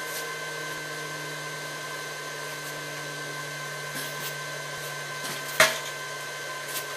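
A steady machine hum, like a fan or motor running. There are a few faint knocks around four seconds in and one sharp knock at about five and a half seconds, as the hoisted compressor and its lifting chain are shifted.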